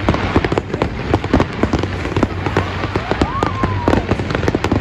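Fireworks going off in a dense, rapid run of bangs and crackles.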